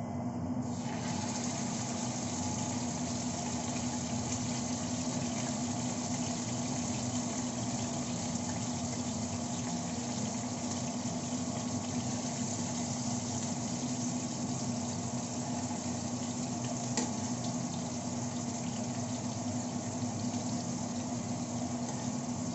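Pork and tofu frying in hot oil in a nonstick pan: a steady sizzling hiss that swells about a second in as the pork goes into the pan, over a steady low hum.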